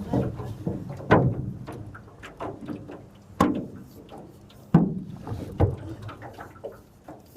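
Small fishing boat being paddled or rowed, giving irregular knocks and clunks against the hull. The loudest come about a second, three and a half and nearly five seconds in.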